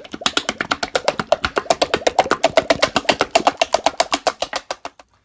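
Music made of a fast, even run of struck percussive notes, about ten a second, with a shifting pitch, stopping about five seconds in.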